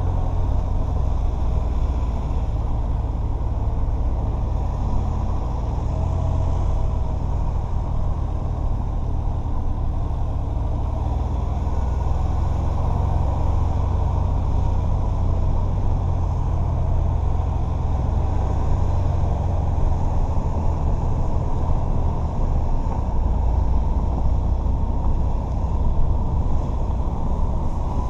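Steady low rumble of a four-wheel drive travelling along a dirt track, engine and tyre noise running evenly throughout.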